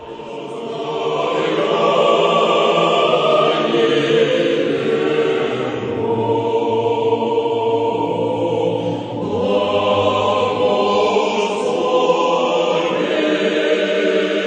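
Orthodox church choir chanting, several voices singing in long held phrases, with a short dip about nine seconds in.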